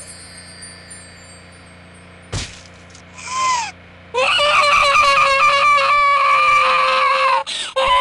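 A girl's long, loud scream of fright, held on one high pitch for about three seconds from about four seconds in, breaking off and starting again just before the end. Before it come a thump and a short swooping tone.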